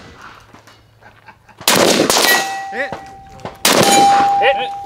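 Two gunshots about two seconds apart, each followed by the ringing of a struck steel target: the ring of a hit.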